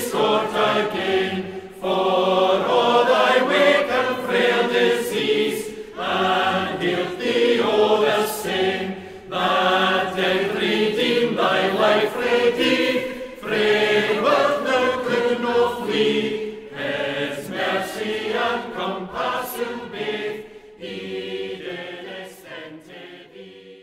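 Voices singing a slow metrical psalm in long, held phrases with short breaks between them, fading away over the last several seconds.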